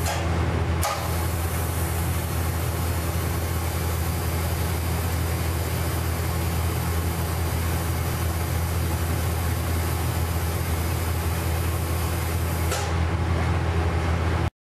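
TIG welding arc on 304 stainless steel: an even, steady hiss that starts just under a second in and stops near the end, as the welder runs the finish weld between the tacks. Under it runs the steady low hum of the welding machine.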